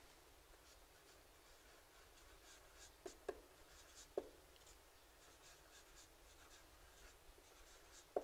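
Marker pen writing on a whiteboard: faint scratchy strokes, with a few sharper taps about three and four seconds in and again near the end.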